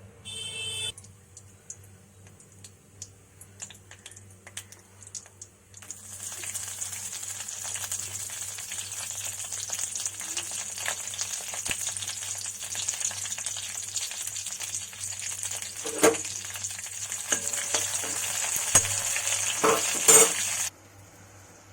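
Tempering frying in hot oil. First come scattered crackles of mustard seeds popping, then from about six seconds a loud steady sizzle as the spices and curry leaves fry. A few sharp knocks of a spoon against the pan are heard near the end, and the sizzle cuts off suddenly.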